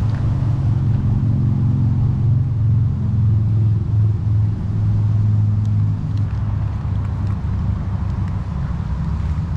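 An engine running steadily with a low hum, easing off a little about six seconds in, with a few faint light ticks later on.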